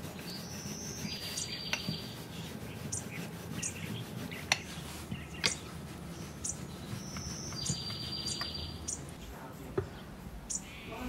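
Birdsong ambience: birds chirping in short high calls. A few sharp clicks are heard, the loudest about four and a half and five and a half seconds in.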